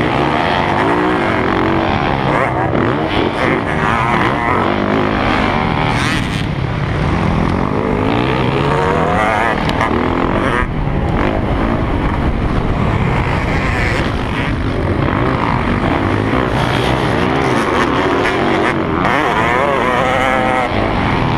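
Motocross dirt bike engine heard close up from the bike it is mounted on, revving up and falling back over and over as the rider works the throttle and gears around the track.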